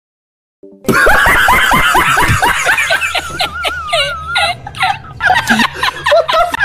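High-pitched group laughter: rapid, repeated giggling and snickering that starts about a second in.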